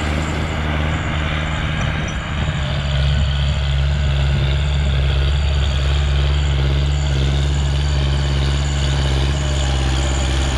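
Kubota L5018 tractor's diesel engine running steadily under load as it drives a rotary tiller through dry soil, a constant low drone that grows a little louder about three seconds in.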